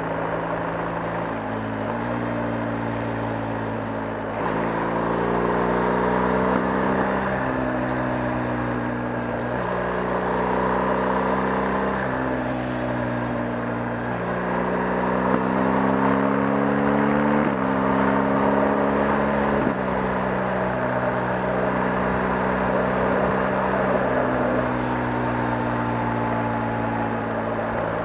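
BMW R 1250 GS 1254 cc boxer twin running under way. The engine note climbs steadily, then jumps to a new pitch every few seconds as it changes through the gears.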